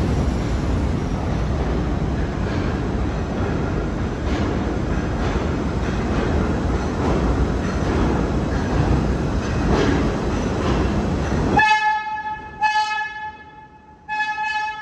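A vintage subway train's rumble as it approaches through the tunnel, then its horn blows twice near the end, a longer blast followed by a shorter one.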